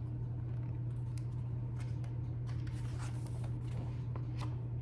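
Paper pages of a hardcover picture book handled and rustled in a few soft clicks and crinkles, over a steady low room hum.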